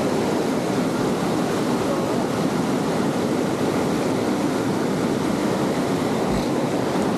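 Fast river current rushing over rocks: a steady, unbroken sound of whitewater.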